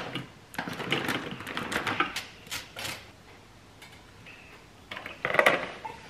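Ingredients tipped from a packet and a small jar into the stainless steel mixing bowl of a kitchen machine: a run of light clicks, taps and rustles, then a quiet stretch. Near the end the plastic lid is set onto the bowl with a louder clatter.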